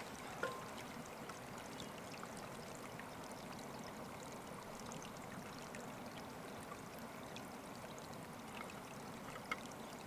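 Faint, steady running water, like a small mountain stream, with a few light ticks.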